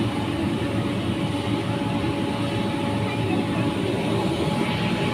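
Steady, unbroken machine noise in an indoor ball-play arena: the blowers that drive the foam-ball tubes and funnels, with a faint steady hum over it.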